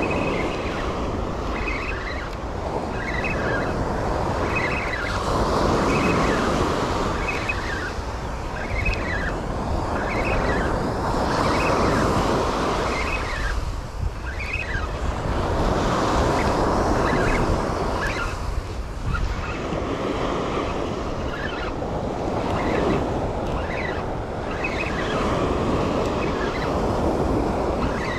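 Ocean surf breaking on a sandy beach, swelling and fading every five or six seconds, with wind rumbling on the microphone.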